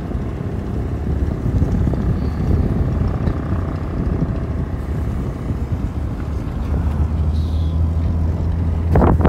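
First-generation Toyota Vios driving along a road: a steady low rumble of engine and road noise. A steady low engine hum comes through more clearly from about seven seconds in.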